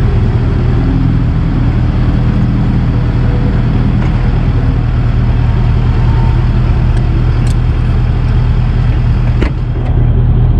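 Vehicle engine running with a steady low drone and road-type noise, unchanging throughout, with a sharp click about nine and a half seconds in.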